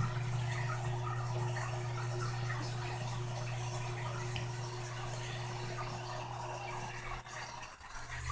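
Toilet tank refilling after a flush: a faint, steady water hiss and trickle over a steady low hum, dropping away about seven seconds in.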